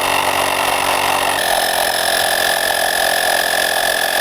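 Portable electric tire inflator running steadily as it pumps air into an e-bike tire's inner tube, with a strong even buzz. Its tone shifts once, about a second and a half in.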